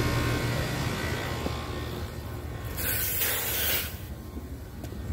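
Newly installed central air conditioner's outdoor condensing unit running just after start-up, a steady low hum with a faint whine, growing fainter after about two seconds. A loud hiss lasting about a second cuts in about three seconds in.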